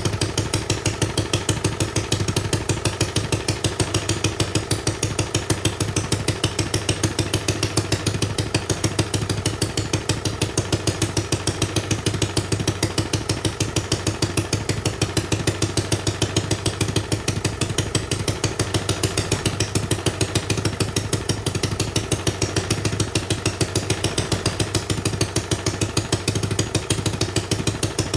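Homemade single-cylinder engine running steadily, with an even, rapid firing beat that holds the same speed throughout.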